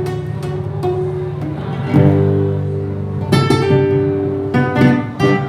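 Live acoustic guitar playing an instrumental passage, strummed chords and picked notes over a steady bass line, with no singing.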